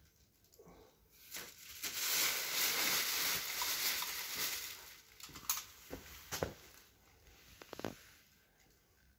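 Thin plastic bag rustling and crinkling as it is handled, starting about two seconds in and lasting about three seconds, followed by three sharp clicks.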